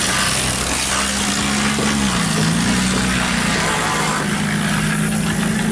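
An engine running, its pitch dipping and rising a few times, under a loud steady hiss.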